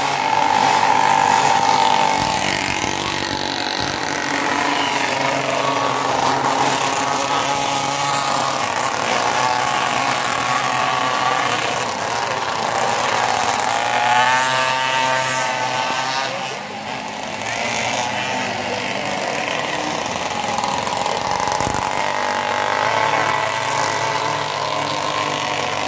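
Small two-stroke pocket mini bike engines buzzing at high revs, their pitch rising and falling with the throttle, with a climbing rev about halfway through. An even hiss of rain on wet tarmac lies underneath.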